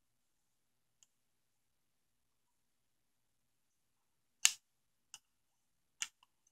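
A few sharp clicks against near silence as the knob of a homemade glass-jar variable capacitor is turned by hand on its lid. The loudest click comes about four and a half seconds in, followed by two more less than a second apart.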